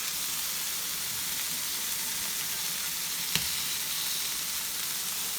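Ground-turkey burger patties sizzling steadily on a hot griddle pan, with a single sharp click a little past the middle.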